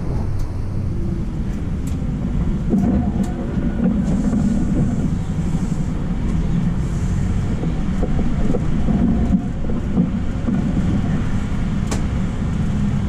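City bus driving, heard from inside the front of the bus: a steady low rumble of drivetrain and road noise, with a few light clicks and rattles scattered through it.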